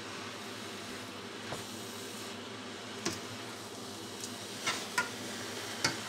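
Wooden spatula stirring grated carrots and rice in a stainless steel pan, knocking against the metal about six times, mostly in the second half. Underneath is a steady hiss from the carrots cooking in the water they have released.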